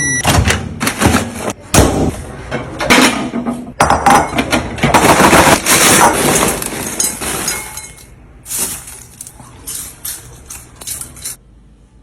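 Glass containers and dishes clinking and knocking together as they are handled and set down, a dense run of sharp clacks that thins to a few scattered knocks after about eight seconds.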